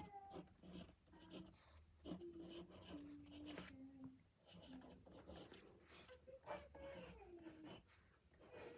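Faint scratching of drawing strokes on paper, in short irregular rubs.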